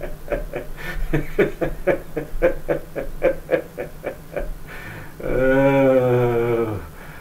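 A voice laughing in a long, rapid cackle of about five 'ha's a second. About five seconds in it turns into one drawn-out held 'ahh' lasting nearly two seconds, which sags in pitch as it ends.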